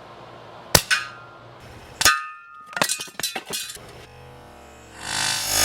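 Umarex Notos .22 air rifle firing at a propane can: two sharp cracks about a second apart, the second followed by a metallic ring as the pellet strikes the can. A run of quick mechanical clicks follows, and music swells in near the end.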